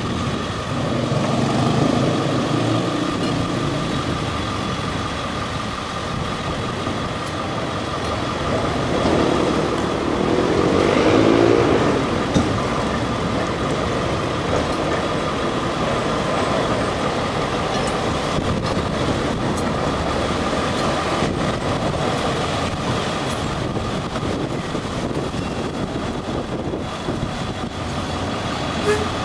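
City street traffic: motor vehicles running and passing, with one passing close and loudest about ten seconds in. A steady whine runs underneath throughout.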